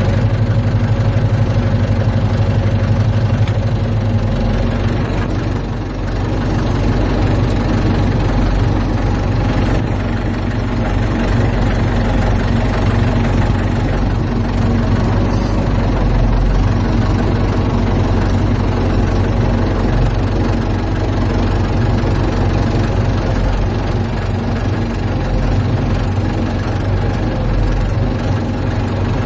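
Ford 755 backhoe's engine running at a steady speed.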